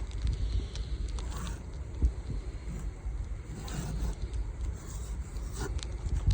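Snowstorm wind buffeting the microphone as an uneven low rumble, with scattered light ticks and crackles and a couple of brief soft hissing swells.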